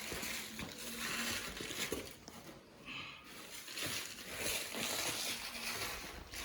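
Rustling and crunching handling noise in several uneven bursts, like loose material such as bran being stirred or crumpled, with small clicks.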